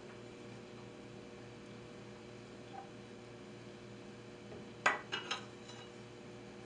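Dishware and utensils being handled on a kitchen counter: a sharp clink and two or three quick clatters about five seconds in, then a louder knock at the very end, over a faint steady hum.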